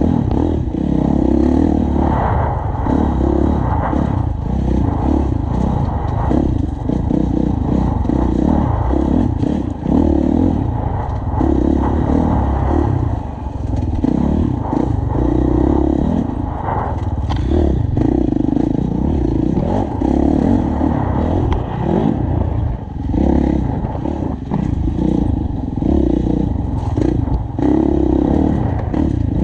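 Enduro dirt bike engine revving up and falling back every second or so as the rider works the throttle through tight turns. Clattering knocks from the bike over the rough, rutted ground come throughout.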